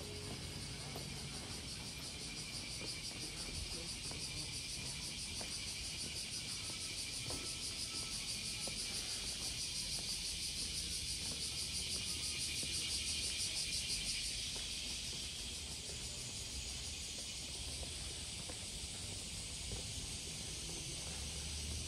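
Cicadas chorusing in summer: a dense, fast-pulsing high buzz that swells toward the middle, then eases off a little.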